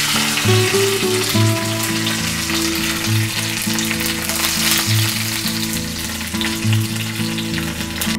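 Tempering spices sizzling in hot sesame oil, with fine crackles: mustard seeds, urad dal, cumin, dried red chillies and fresh curry leaves frying for a South Indian tadka.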